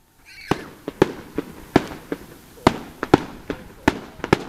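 Aerial fireworks shells bursting overhead: more than a dozen sharp bangs in quick, uneven succession, starting about half a second in.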